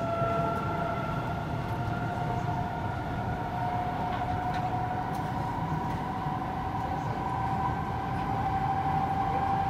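Kawasaki C751B metro train running on the line, heard from inside the car: a steady whine, most likely from the traction motors, slowly rising in pitch over the rumble of the wheels on the track.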